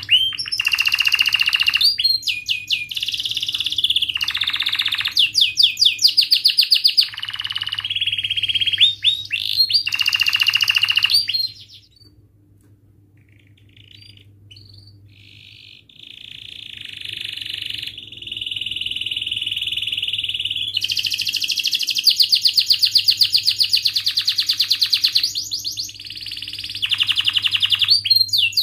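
Domestic canary singing in fast rolling trills and chirping phrases. It pauses about twelve seconds in, then resumes with a long unbroken rolling trill.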